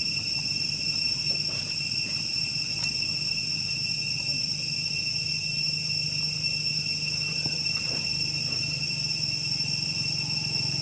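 Insect chorus: a steady, continuous high-pitched drone made of several held pitches, over a low steady hum, with a few faint light ticks.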